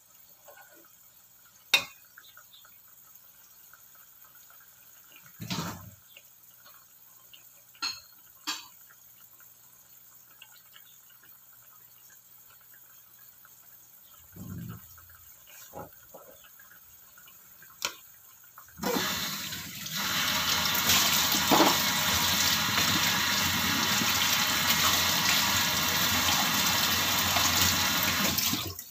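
A few light knocks and clicks, then about two-thirds of the way in water starts running steadily, like a kitchen tap, and stops suddenly at the end.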